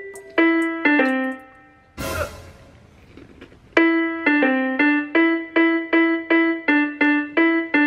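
Electronic keyboard played one note at a time in a simple tune with a piano sound. About two seconds in a short noisy sound breaks in and the playing stops for nearly two seconds, then resumes with evenly paced notes, about three a second, moving between a few nearby pitches.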